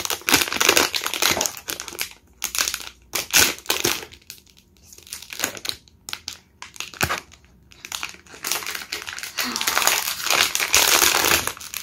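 Crinkling of a blind-box figure's sealed plastic foil bag being handled and squeezed, in irregular bursts with quieter gaps in the middle.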